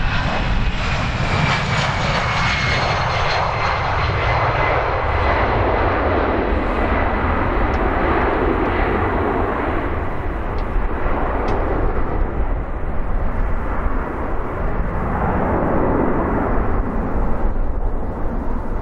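Airbus A319-111's twin CFM56-5B turbofans at takeoff power as the jet rolls, lifts off and climbs away: a steady loud jet roar, with a high engine whine that falls in pitch over the first few seconds.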